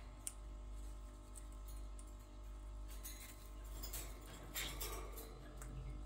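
Pyrrhura conures moving about their cage: faint, scattered clicks and taps of beaks and claws on the wire bars, wooden-and-plastic toys and steel food bowl, busier about halfway through. A steady low hum underneath.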